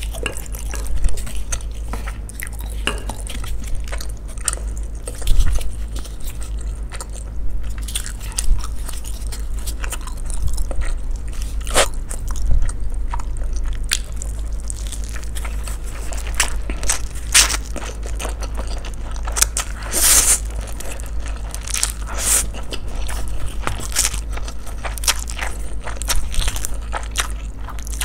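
Close-miked chewing and crunching of mouthfuls of stir-fried instant noodles, with frequent short, sharp mouth clicks and smacks at an irregular pace.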